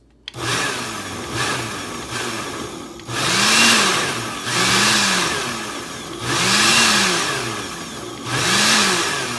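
Countertop blender pulsed on and off, pureeing herbs, citrus and oil into a marinade: a run of short pulses, then four longer pulses about a second each, the motor whine climbing and dropping with each one. Pulsing at the start breaks the load down until the mix turns liquid.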